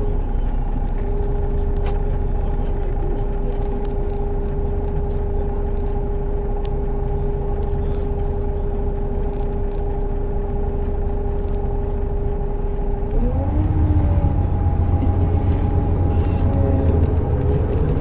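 Car engine and road noise heard from inside the cabin, a steady hum while the car rounds the junction. About thirteen seconds in, the pitch rises and the low rumble grows louder as the car accelerates away.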